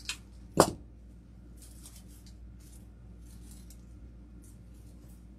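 Artificial flowers and greenery rustling softly as their stems are handled and worked into grapevine wreaths. Near the start there are two sharp clicks close together, the second one loud.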